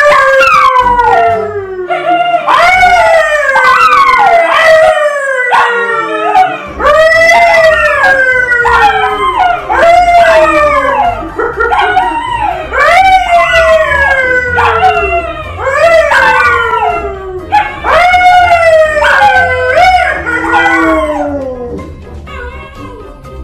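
Dogs, a Labrador-type and a poodle, howling along with a man's howl: loud, overlapping howls that each slide down in pitch, about one a second, dying away near the end.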